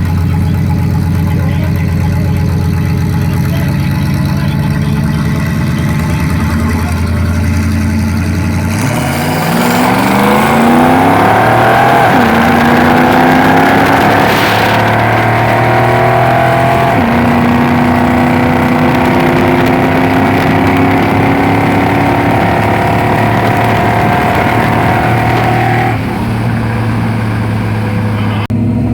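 V8 cars idling at the line with a steady burble, then launching at about nine seconds and accelerating hard: the engine note climbs, drops back at each gear change, and holds high before lifting off near the end.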